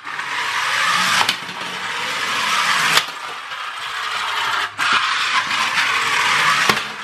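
Small slot car electric motor, run on a 2S LiPo, spinning the plastic gear train of a TOMY toy boat at high speed: a loud, steady whirring of gears, broken by a few sharp knocks and short dips.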